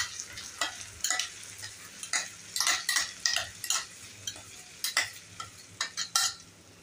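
Wooden spatula scraping and tapping tomato purée out of a steel mixer jar into a pan, in quick irregular strokes, with a faint sizzle from the pan of hot oil and fried onion.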